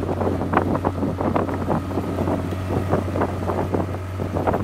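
Small boat's outboard motor running at a steady low hum under way, with water slapping irregularly against the hull and wind buffeting the microphone.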